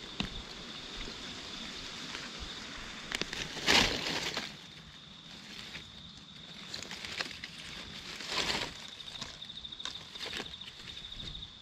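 A steady high-pitched insect drone, pulsing toward the end, over a few short bursts of rustling and crunching in dry leaf litter. The loudest rustle comes about four seconds in and another a little past the middle.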